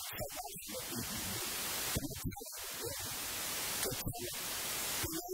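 A man preaching in Burmese through a handheld microphone, over a steady hiss.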